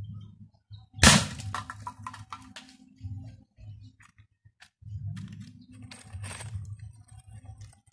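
A single sharp crack about a second in as a homemade PVC air rifle with a stainless barrel fires and the pellet strikes a can target, followed by a brief ringing clatter as the can and its wooden post fall.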